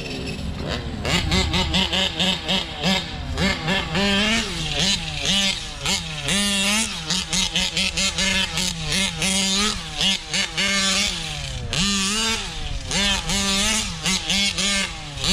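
Big-bore two-stroke gas engine of a 1/5-scale RC truck revving up and dropping back over and over, its pitch rising and falling with each throttle blip as it is driven hard during break-in.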